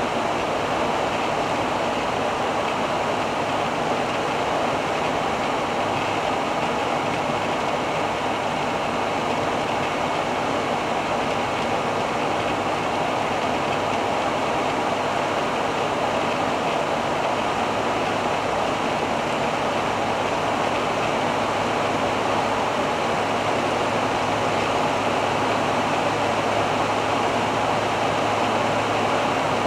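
Steady driving noise of a 1985 Hobby 600 motorhome on a Fiat Ducato base cruising at about 95 km/h: an even rush of road and wind noise over a constant low engine drone.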